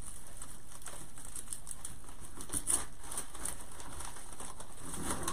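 Rustling and many small ticks of artificial sunflowers and grapevine being handled and pressed into a wreath.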